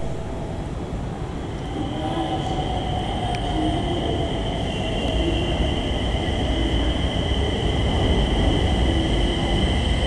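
Nagpur Metro train pulling into the platform: a low rumble that grows slowly louder as it approaches, with two high steady whines above it and a lower tone that slowly falls as the train slows.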